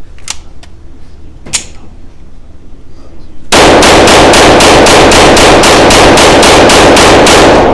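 Taurus TX22 Competition .22 LR semi-auto pistol fired rapidly through a magazine of Winchester M&P rounds, about four shots a second, loud enough to overload the recording, cycling without a stoppage. Two sharp clicks come first, about a second apart.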